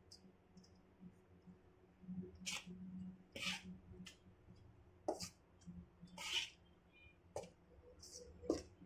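Dry flour mixture being stirred in a bowl: faint, irregular scraping and rustling swishes, about eight of them.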